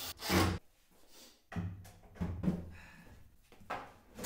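Irregular wooden knocks and thuds from handling and fitting wooden drawer boxes, loudest about half a second in, with another sharp knock near the end.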